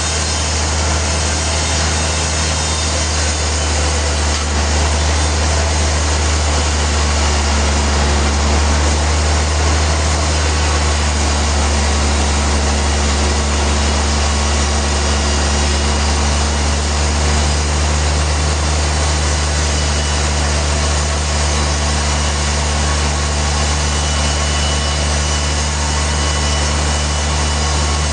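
Sawmill machinery running steadily: a loud low drone with a dense rushing noise above it, without breaks or changes.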